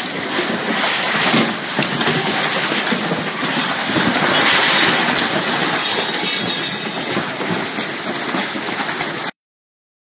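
Typhoon wind and driving rain: a loud, steady rushing noise that swells and eases in gusts, cutting off abruptly near the end.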